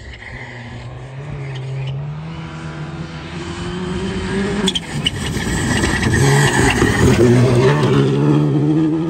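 Skoda Fabia Rally2 Evo rally car's 1.6-litre turbocharged four-cylinder engine running hard on a gravel stage, its pitch climbing as it grows louder on approach. About halfway through it is suddenly much closer and louder as it passes, its tyres throwing up gravel.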